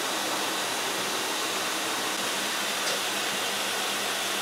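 Kitchen tap running steadily into a stainless-steel sink, the stream falling onto packaged frozen tuna to thaw it. It is an even, unchanging rush of water.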